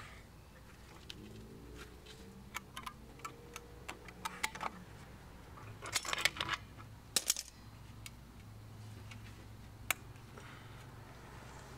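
Small metal clicks and clinks of pliers and locking C-clamp vise grips against a drum brake shoe's hold-down spring, cup and pin, with a denser, louder run of clicks about six to seven seconds in as the tools come off the shoe.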